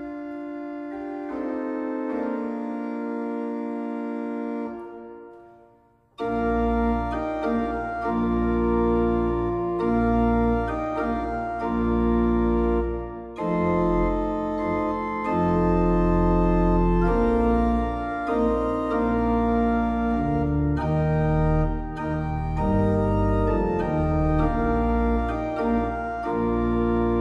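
Organ music: soft held chords that fade out about six seconds in, then a louder passage starts with deep bass notes under changing chords.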